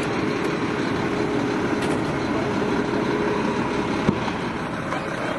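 Garbage truck running steadily, with one sharp knock about four seconds in.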